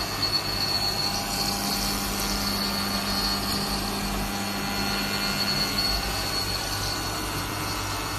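CNC milling machine running steadily, with a constant high whine over a low hum.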